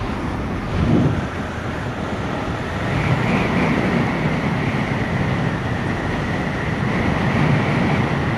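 Honda CG 160 Start motorcycle's single-cylinder engine running while riding, with wind rushing over the microphone and a thin steady whine above it; it gets a little louder about three seconds in.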